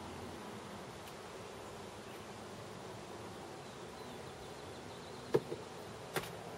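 Outdoor summer ambience: a steady faint buzz of insects over a hiss, broken by two sharp clicks about five and six seconds in.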